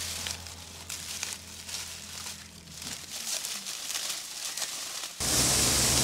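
Dry corn stalks and leaves rustling and crackling in irregular bursts as a hand works through them. About five seconds in, a sudden switch to the much louder, steady noise of a corn thresher running and pouring out shelled kernels.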